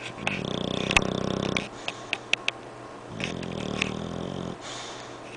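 English bulldog snoring: a loud, rattling snore breath, then a few sharp clicks, then a second, weaker snore about three seconds in.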